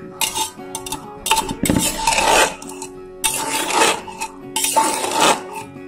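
A metal spoon stirring and scraping through boiled taro leaves in a pressure cooker pot, in repeated strokes, over steady background music.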